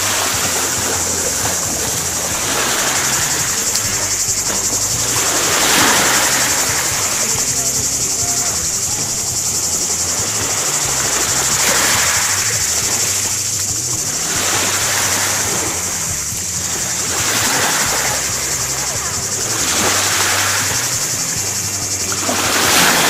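Small waves washing onto a pebble shore, swelling about every three seconds, with splashing from someone wading in the shallows. A steady high-pitched hiss runs underneath.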